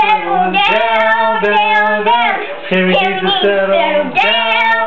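A voice singing a sing-song tune in held notes that slide from pitch to pitch.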